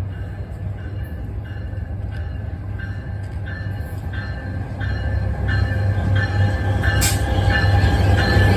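NJ Transit locomotive 4503 approaching and passing, its low rumble growing louder as it draws alongside, with a bell ringing nearly twice a second throughout. A single sharp clank about seven seconds in.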